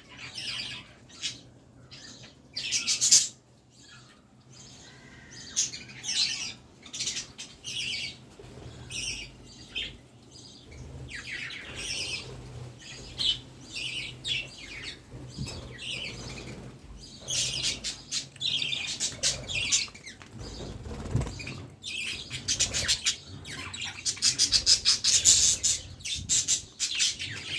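Pet budgerigars chirping and chattering in short, high calls. The calls come thickest near the end, in a fast run of rapid chirps.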